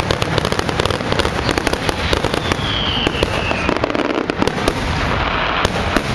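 Fireworks finale: a dense, continuous barrage of bangs and crackles, with a falling whistle about two and a half seconds in.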